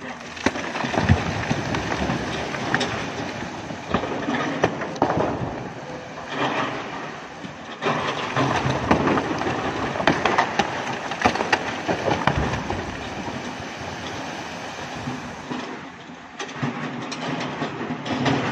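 Rock and soil pushed off a clifftop by an excavator, pouring down the rock face into water: a loud, continuous clatter of falling rubble with many sharp knocks. It starts suddenly, swells and ebbs, and dies away near the end.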